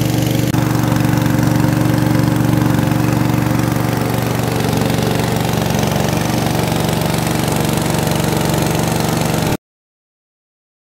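Small household-scale rice milling machine running steadily under power, a constant mechanical hum; it cuts off suddenly near the end.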